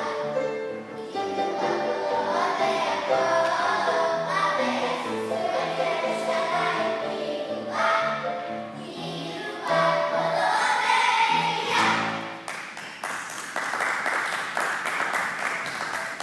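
A group of children singing a song with musical accompaniment. The song ends about three quarters of the way through and applause follows.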